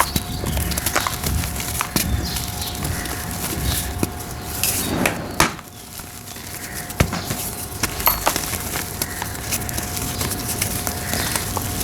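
Dry shapes of pressed red brick dirt being crumbled: a run of crisp cracks and gritty crumbling, with a denser crunch about five seconds in.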